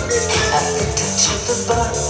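Electronic dance music with a steady beat, played in a DJ set.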